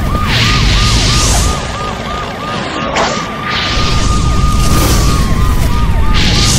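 Siren sound effect wailing in quick yelping sweeps, about three a second, which hold on one steady tone midway and then glide down before the yelps start again. It sounds over a heavy low rumble and loud whooshes.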